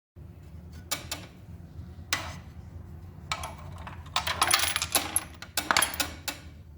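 Small metal parts clinking and clattering as they are handled, in several short bursts over a steady low hum.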